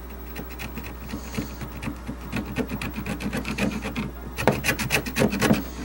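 Rapid back-and-forth scraping as old glue and foam-surround remains are scraped off a vintage speaker with a blade, the strokes louder in the last couple of seconds. A steady low hum runs underneath.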